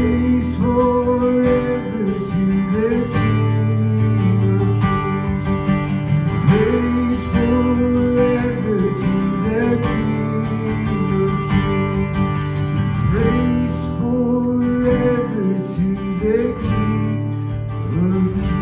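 Instrumental music led by acoustic guitar, with a melody line moving over steady strummed chords.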